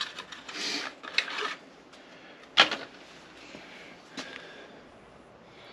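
Rustles and knocks of parts being handled in work gloves, with one sharp click about two and a half seconds in and a fainter click near four seconds.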